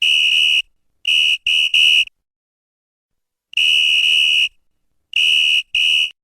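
Referee's whistle blown in a run of seven shrill, steady blasts: one of about half a second, three quick short ones, a longer blast of about a second, then two more short ones.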